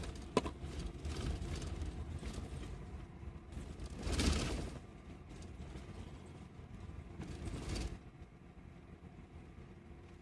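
Steady low rumble of a coach bus's engine and running gear, heard from inside the cabin. Two short, louder rushes of noise come about 4 and 7.5 seconds in, with a brief click near the start.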